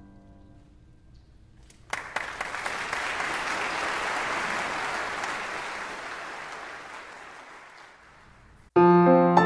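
Audience applauding: the clapping breaks out about two seconds in, swells, then slowly dies away. Near the end a piano starts playing.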